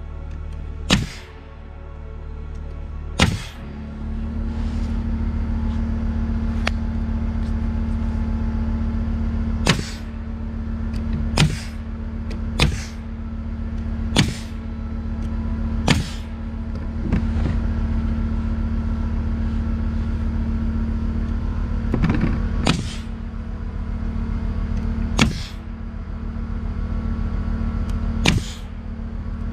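Pneumatic nail gun firing nails through OSB roof sheathing into the rafters, about a dozen sharp shots at irregular intervals. About four seconds in, an air compressor cuts in and runs steadily underneath.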